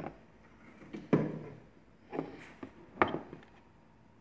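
A handful of short, sharp knocks and clatters of a phone circuit board and small parts being handled on a hard workbench. The loudest comes a little over a second in.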